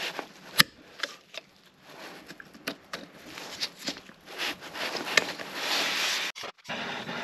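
Circlip pliers working a circlip out of a motorcycle front wheel hub: scattered sharp metal clicks and scraping of the plier tips against the circlip and the bearing bore.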